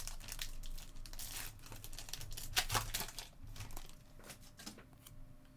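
A trading-card pack wrapper being torn open and crinkled. The crackling is busiest for about the first four seconds, then thins out.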